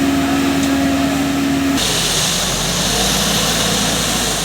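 Engine of road-construction machinery running steadily, its tone rising slightly, then breaking off abruptly a little under two seconds in to a noisier engine sound with a hiss.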